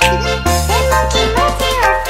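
Background music with sustained bass notes and a melody that bends up and down.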